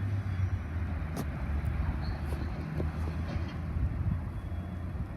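Diesel-electric locomotive (NSW 82 class banker) running at the rear of a train, a steady low engine drone with a sharp click about a second in.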